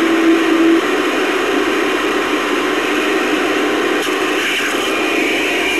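CB radio receiver hissing with static and band noise, with no voice coming through. A steady tone sounds over the static and cuts off under a second in.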